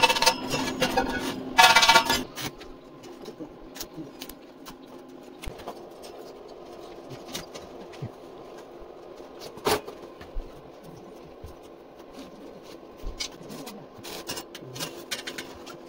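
A handheld electric power tool's motor whines in two short runs in the first two seconds, then stops; the rest is a low hiss with scattered clicks and taps of metal work, one sharp click near the middle.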